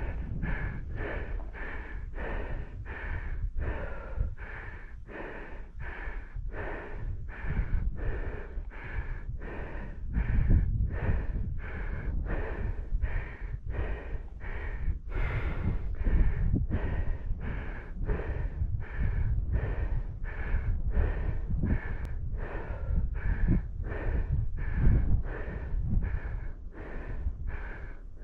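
A person breathing hard and rhythmically, about three breaths every two seconds, with a low wind rumble on the microphone.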